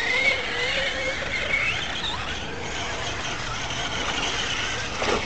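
Electric RC short-course truck's motor and gears whining as it drives over dirt, the pitch wavering and gliding up about two seconds in, over a steady rush of tyres and wind.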